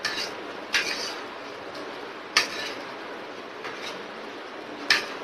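Metal spoon clinking and scraping against a ceramic plate while scooping food, with four sharp clinks spread over about five seconds over a steady background hiss.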